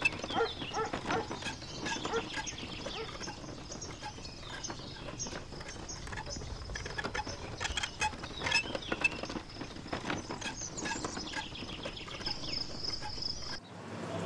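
A wooden handcart rattling and knocking as it is pushed over a rough dirt path, with birds chirping and a thin, high, steady tone that grows louder near the end. It all cuts off suddenly just before the end.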